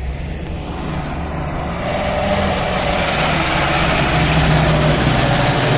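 Diesel engine of a Tata tipper truck getting louder as it drives past close by, with a rising rush of tyre and road noise on the gravel track.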